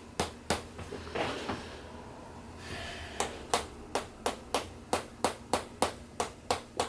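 Sharp, evenly spaced taps during a chiropractic treatment, about three a second, starting about three seconds in after a few scattered taps.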